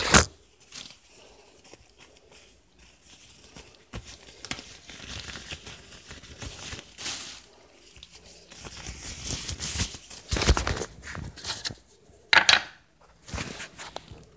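Irregular rustling and crinkling of handling, like paper or plastic being moved about, with a few louder bumps: one right at the start and two more about ten and twelve seconds in.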